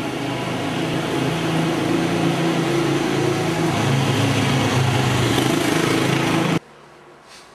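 Small motorbike engine running steadily and growing louder as it comes close, with a slightly wavering pitch. It stops abruptly about six and a half seconds in.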